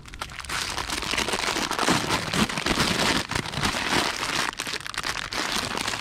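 Packaging crinkling and rustling continuously as items are handled and unwrapped, with many small crackles.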